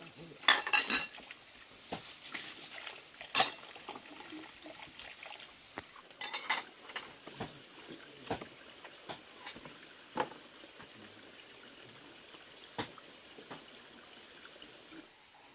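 Kitchen utensils clinking and knocking against pots and dishes in scattered strikes: a quick cluster about half a second in, another around six seconds, and single knocks every second or two after that.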